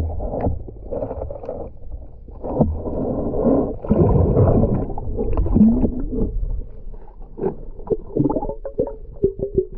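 Muffled underwater sound picked up by a submerged camera: surges of rushing water and bubbles from a diver close by, with a few low wavering tones, and short clicks and knocks in the last couple of seconds.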